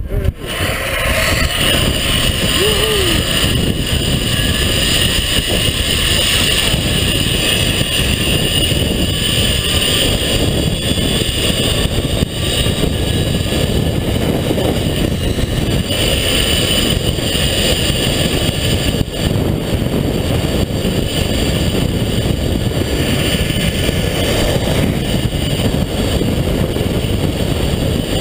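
Loud, steady rush of wind on the rider's camera microphone during a high-speed zip line ride, with a faint steady whirr from the trolley's pulleys running along the steel cable.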